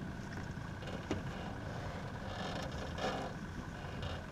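Steady low rumble of a small aluminium fishing boat out on the water, with a faint steady high whine and a couple of light knocks on the hull or gear.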